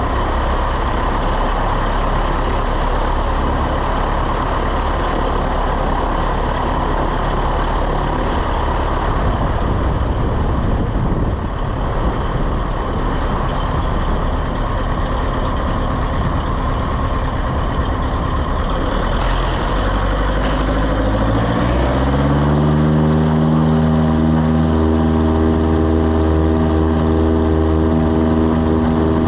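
Piper Super Cub PA-18-150 floatplane's four-cylinder Lycoming engine and propeller at full power for a takeoff from rough, windy water, under a heavy rushing rumble. About three-quarters of the way through, the rumble drops away, and a clear engine note rises in pitch and then holds steady.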